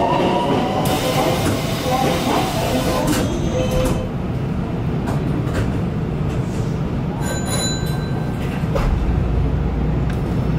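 Nankai 8300-series electric train standing at the platform, about to depart: a hiss of air from about a second in lasting two seconds, then scattered clicks and knocks, with a low rumble rising near the end.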